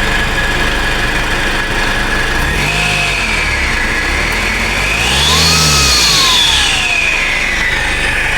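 Isuzu MU-X turbodiesel engine running and revved twice, a short blip and then a longer, higher rev, with a turbo whistle rising and falling along with each rev. This is the loud turbo noise whose cause is still being sought.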